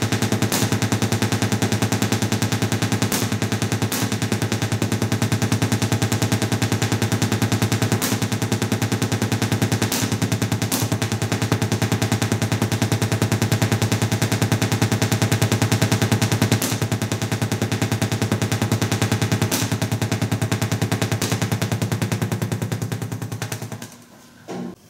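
Dual 833A vacuum-tube Tesla coil firing long sword-like sparks into the air: a steady, harsh, rapid buzz of spark discharges with occasional louder cracks. It cuts off near the end as the power is shut off.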